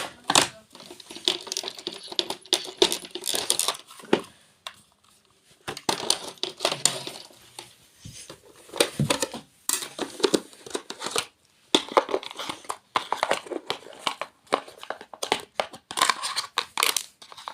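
Irregular crinkling and rattling in clusters, broken by short pauses, as crinkly material is handled.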